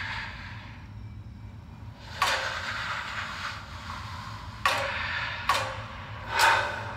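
Movie trailer sound effects heard through a small TV speaker: four sudden hits, each dying away quickly, the last one swelling up before it peaks, over a low steady hum.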